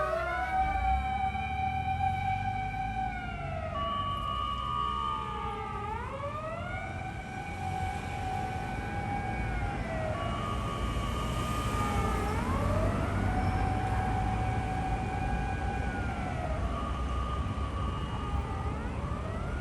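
Fire command vehicle's mechanical motor siren, pedal held fully down. It winds up, holds a high wail and winds down again in long cycles about every six seconds, over the low rumble of the vehicle.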